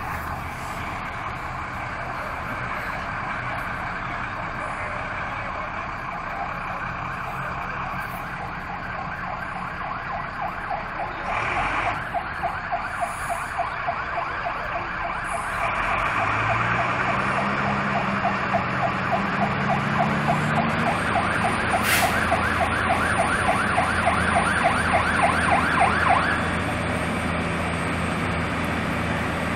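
Emergency vehicle siren sounding a fast, repeating yelp that grows steadily louder as it approaches, then cuts off suddenly near the end. Partway through, a heavy truck engine revs up in rising steps and keeps running after the siren stops.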